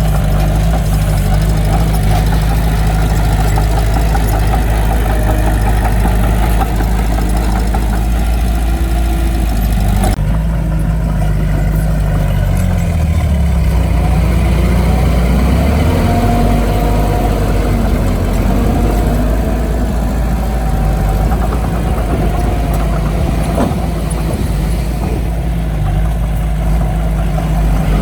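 Diesel engines of heavy earthmoving equipment (bulldozer and dump trucks) running steadily. The engine note shifts for a few seconds around the middle.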